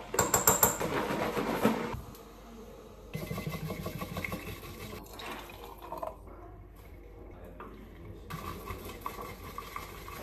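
Bamboo matcha whisk (chasen) beating tea in a ceramic bowl in quick strokes, and matcha being poured from the bowl into a glass.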